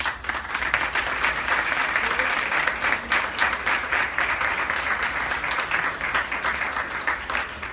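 Audience applauding, a dense patter of many hands clapping that begins abruptly and tapers off near the end.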